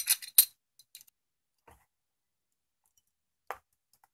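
Small metal clicks and taps as the bottom piece of a transformer's metal frame is fitted and pressed onto the core: a quick cluster of sharp clicks at first, a few faint ticks, then one louder click near the end.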